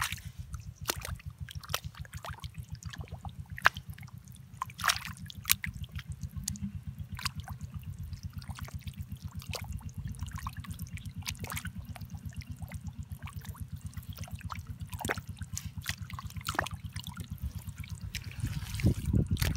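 Muddy water trickling and dripping over wet mud, with scattered sharp drips and squelches. Underneath runs a steady, rapid low throb.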